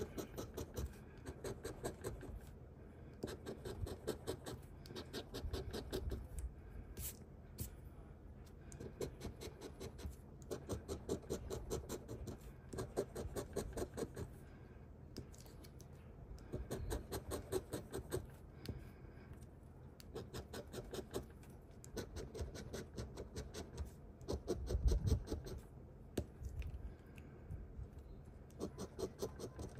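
A coin scratching the latex coating off a scratch-off lottery ticket: quick back-and-forth strokes in runs of a second or two, with short pauses between, as each number is uncovered. One low thud comes late on.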